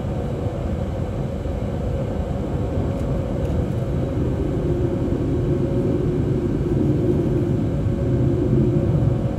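Jet airliner engines idling, heard from inside the cabin as a steady low rumble with a constant hum. The rumble swells slightly louder in the second half.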